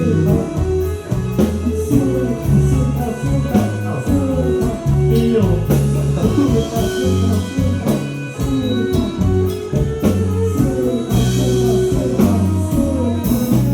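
Live band playing an instrumental passage of a Thai pop song: guitar over bass and a drum kit, with no singing.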